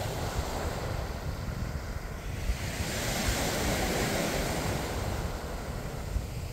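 Small sea waves breaking and washing up the beach, one surge of surf swelling about three seconds in and fading again, with wind rumbling on the microphone.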